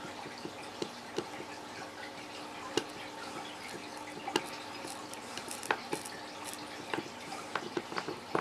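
Hot soldering iron tip melting and scraping along the rough cut edge of a plastic tackle box divider to smooth it: small irregular ticks and crackles over a steady hum.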